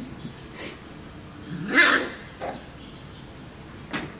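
A small dog barks once, about two seconds in, with a few short, fainter sharp sounds around it.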